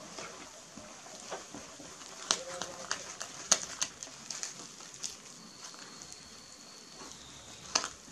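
Silicone spatula stirring flour into thick wet cake batter in a plastic mixing bowl, with soft scraping and scattered light clicks and taps as it knocks the bowl.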